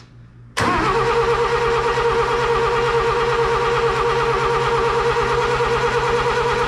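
Starter cranking the Satoh S-550G tractor's four-cylinder gas engine, starting suddenly about half a second in and turning it over steadily without the engine firing. The owner suspects it has no spark.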